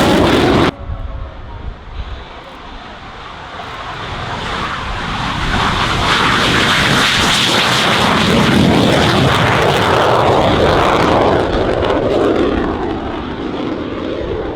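Jet noise of RAAF F/A-18A Hornets flying past. A loud pass cuts off abruptly under a second in. Then another pass builds over several seconds, is loudest in the middle and slowly fades.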